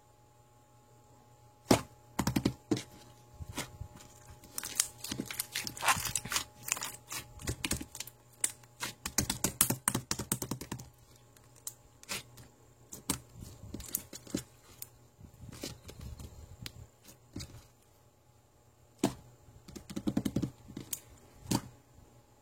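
Rapid, irregular clicking and tapping in clusters, separated by quiet gaps.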